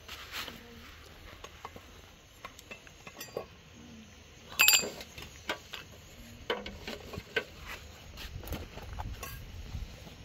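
Cooking utensils clinking and knocking against metal pots and dishes in irregular handling sounds. One loud clink about halfway through rings on briefly.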